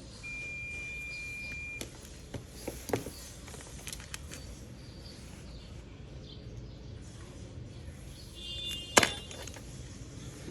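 A steady, high electronic beep that cuts off about two seconds in, followed by scattered small clicks and taps and one sharp, ringing clink about nine seconds in.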